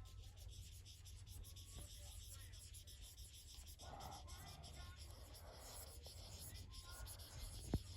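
Felt-tip marker rubbing on a coloring-book page in faint, repeated scratchy strokes, coloring in an area. A single sharp click comes near the end.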